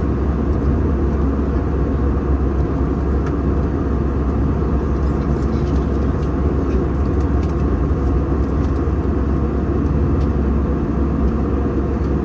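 Steady cabin noise of an airplane in flight, heard from inside the cabin: an even, unchanging rumble with its weight in the low end.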